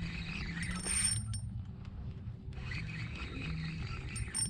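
Scraping and rubbing handling noises with a few short clicks, as gear is moved about in a small fishing boat.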